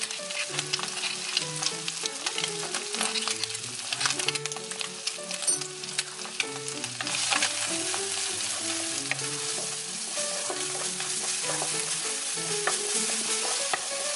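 Egg and ground spice paste sizzling in hot oil in a non-stick wok, with a wooden spatula scraping and tapping against the pan as it is stirred. The sizzle grows louder about halfway through. A soft melody plays underneath.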